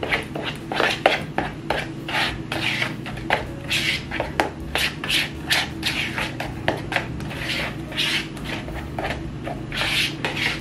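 A utensil stirring cornbread batter mixed with corn in a bowl: a rhythmic scraping swish, about two to three strokes a second, over a low steady hum.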